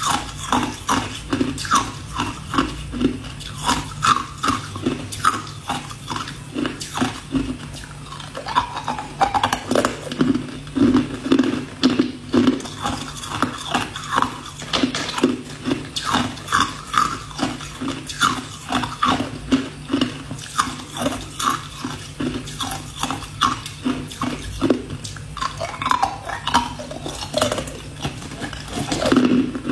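Ice cubes crunched between the teeth and chewed, close up, in a steady run of crisp crunches about two a second.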